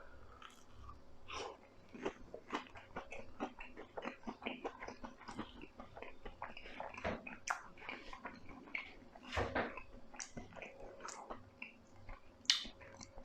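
A person biting into and chewing crisp oven-baked falafel, with many small irregular crunches and mouth sounds.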